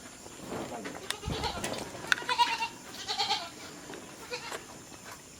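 Farm animals calling: three short, wavering cries about a second, two seconds and three seconds in, with a dull thump just before the first.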